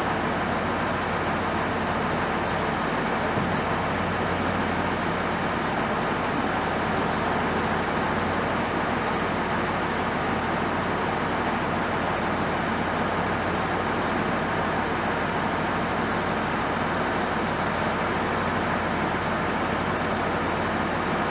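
Heavy machinery running steadily: an even engine drone with a low hum and no distinct knocks or changes.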